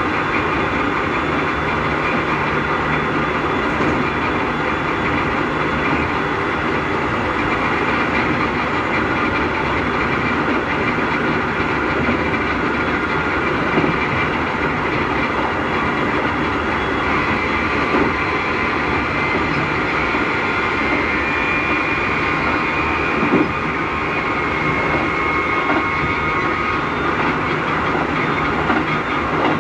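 Running noise inside a Keikyu 1000-series electric train car whose Mitsubishi IGBT-VVVF traction motors give off a loud, abnormal whine. The whine is heard over steady running noise, with a few wheel knocks over rail joints. The uploader takes the loud motor noise for Mitsubishi motors swapped in from the notoriously loud 1105 set.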